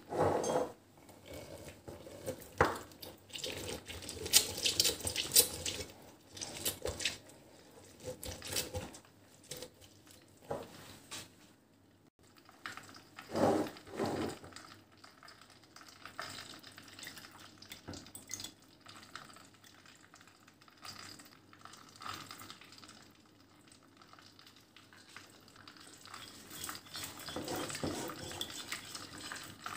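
Lemon halves twisted on a plastic hand citrus juicer over a glass jar: wet squelching of juice with clicks and knocks of the plastic. Near the end, a metal spoon stirs a thick sauce in a ceramic bowl, scraping steadily.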